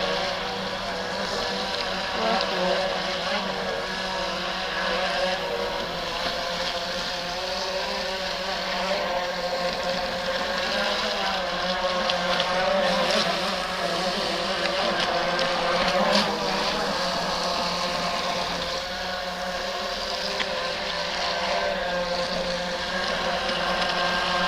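Electric RC speedboat motor whining steadily as the boat runs on the water, its pitch wavering slightly with throttle and load. There is a brief click about two-thirds of the way through.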